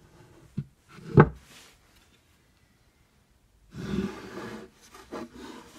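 Wooden sliding lid of a Japanese-style toolbox being worked open: a sharp wooden knock about a second in, then the lid sliding along its grooves, wood rubbing on wood for about a second, followed by a few lighter knocks.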